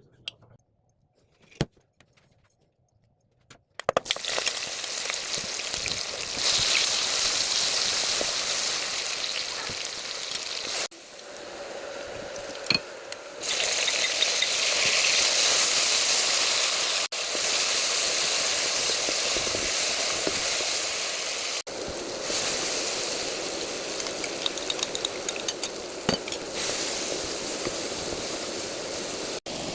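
Hot oil sizzling in a cooking pot, an even hiss whose level jumps abruptly several times. It starts about four seconds in, after a nearly silent stretch with a couple of clicks.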